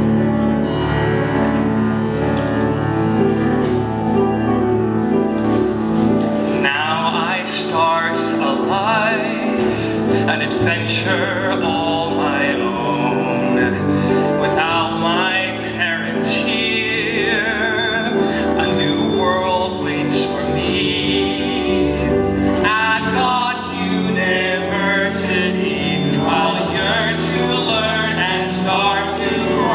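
A small live band (piano, bass, cello, guitar and percussion) plays a sustained instrumental introduction to a musical-theatre song; about seven seconds in, male voices begin singing over the accompaniment and continue.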